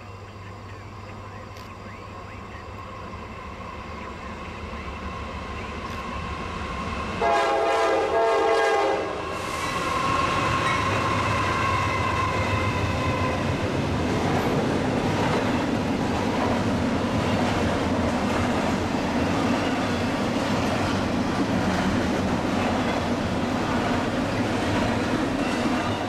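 Norfolk Southern freight locomotives approach with a low rumble that grows louder, then sound one horn blast of about two seconds about seven seconds in. After that the double-stack intermodal train passes close by with steady wheel-and-rail noise.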